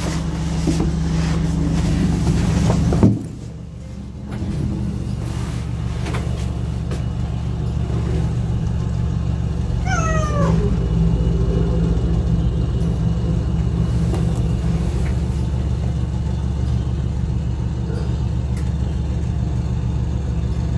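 A domestic cat gives one meow about halfway through, falling in pitch, over a steady low hum. There is a single short knock about three seconds in, after which the background goes quieter.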